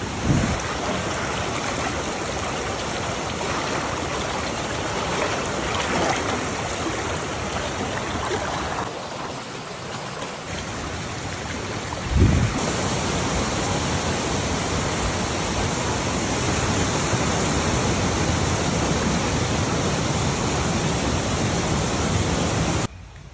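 Shallow forest stream rushing steadily over rocks. It is broken by a low thump twice, just after the start and about halfway through. The sound drops away suddenly near the end.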